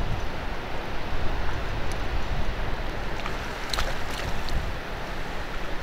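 Cold, gusty wind buffeting the microphone, a steady low rumbling rush, with a few faint ticks about four seconds in.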